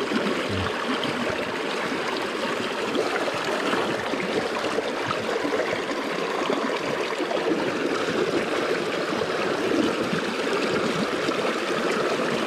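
Shallow stream water rushing and splashing over logs, a steady rushing noise.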